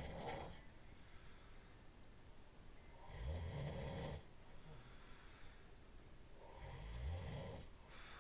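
A man snoring in his sleep: long, rumbling snores on each breath, repeating about every three and a half seconds.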